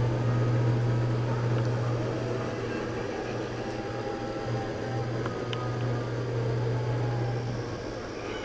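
A steady low electric hum, like a small motor running, that cuts out near the end, with faint wavering tones above it.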